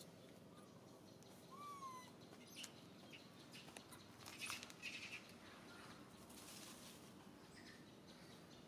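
Quiet outdoor ambience with a few faint, short falling bird chirps about two seconds in and a brief soft noise a few seconds later.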